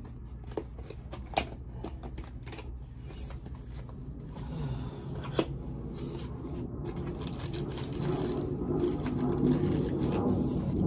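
Packaging being handled and opened: rustling with a few sharp clicks in the first couple of seconds and one about five seconds in, the handling growing busier and louder over the last few seconds.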